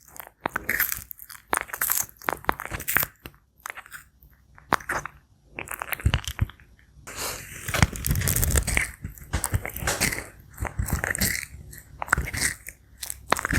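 Sulcata tortoise biting and chewing food: irregular crisp crunching bites, coming thicker and louder for a few seconds past the middle.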